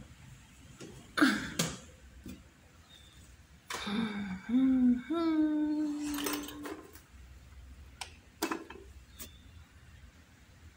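A voice giving a wordless call near the middle: a few rising and falling sounds, then one note held for about a second and a half. Short clicks and knocks come before and after it.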